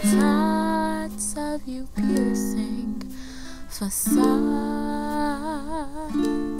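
Background music: a song with long held sung notes, wavering with vibrato near the end, over a plucked ukulele-like string accompaniment.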